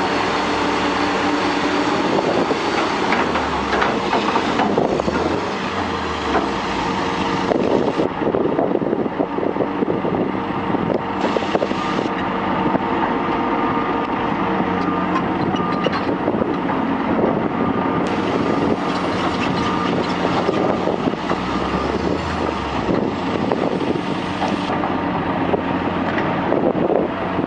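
Heavy construction machinery running, with diesel engine noise and repeated knocks and clanks, changing abruptly several times across short back-to-back clips.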